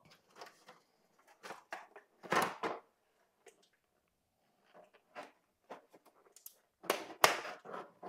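Handling noises from a golf cart dash panel as an ATV key switch is pushed into the hole cut for it: scattered light knocks and rubs, a louder scrape about two and a half seconds in, and a quick cluster of sharp clicks and knocks near the end, the loudest moment.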